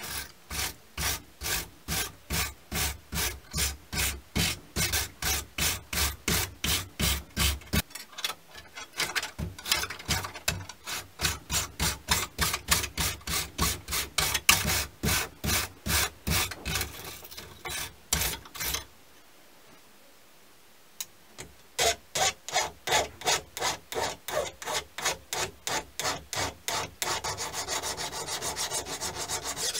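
Wooden sanding block rubbed back and forth over a steel knife tang clamped in a vise, scouring off old grime, in even strokes about two to three a second, with a pause of a couple of seconds past the middle. Near the end, a hand file scrapes quickly along the steel blade.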